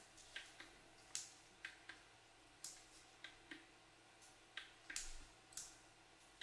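Small, sharp clicks and ticks at irregular intervals, a dozen or so, from desk lamps being handled and switched on and off, against near silence.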